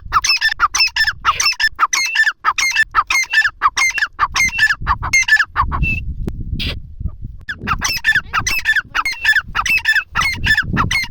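Grey francolin (bhura teetar) calling: a rapid series of repeated shrill notes, about three a second. It breaks off briefly about halfway through and then starts up again. A low rumble sits underneath in the middle and near the end.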